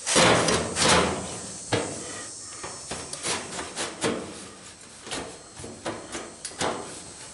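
A hand-formed sheet-metal patch panel being handled and offered up to the car body: a loud scraping rub in the first second, then irregular rubs and light metal knocks.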